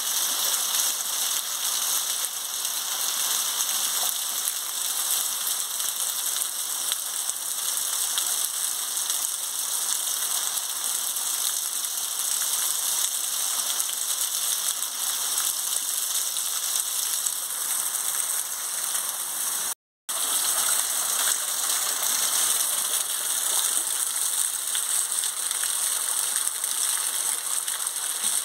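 Heavy rain falling steadily, with rainwater pouring off the roof edge. The sound cuts out for an instant about two-thirds of the way through.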